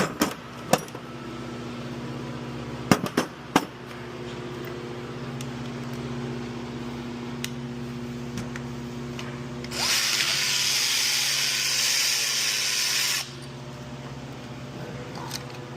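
A power tool runs for about three seconds, near the end, spinning out the bolt that holds the intake manifold bracket, then stops abruptly. Before it come a few sharp metal clicks of tools and sockets, over a steady low hum.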